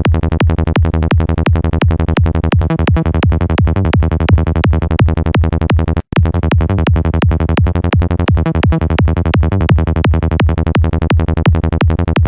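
Sylenth1 synth bass patch at 170 BPM, run through FabFilter Saturn saturation, looping as rapid even notes about six a second. Saturn is switched in and out to compare the clean sound with the dirtier saturated one, and the sound cuts out briefly about six seconds in.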